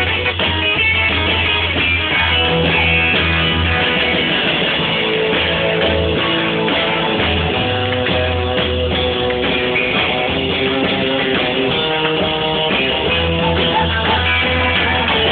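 Live rock'n'roll band playing loudly, with guitar to the fore over a steady bass line.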